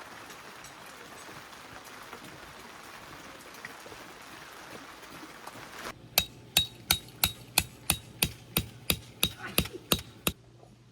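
Hammer driving a tent peg: about a dozen sharp, evenly paced strikes, roughly three a second, starting about six seconds in and stopping shortly before the end, over a faint steady hiss.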